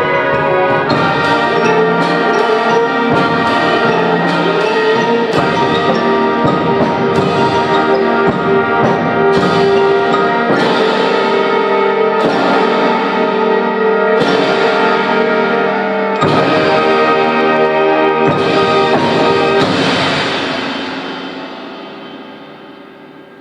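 High-school symphonic band playing a loud sustained passage of full brass and woodwind chords, with percussion and timpani hits accenting it about once a second. Near the end the final chord is released and dies away.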